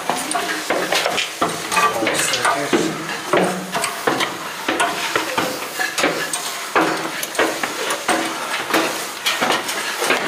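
Footsteps and the scrape and rustle of clothing and a backpack brushing the walls while climbing a narrow staircase, with many short knocks throughout.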